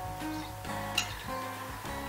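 Background acoustic guitar music with steady strummed chords. There is one short, light click about halfway through.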